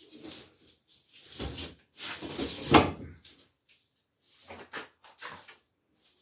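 A plasterboard sheet being pressed and shifted against a brick wall: a few short scraping and knocking bursts, the loudest a bump about two and a half seconds in.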